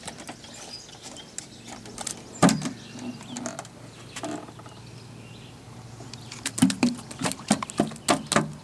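Irregular clicks and knocks from handling on a dock: one sharp knock about two and a half seconds in, then a quick run of clicks near the end.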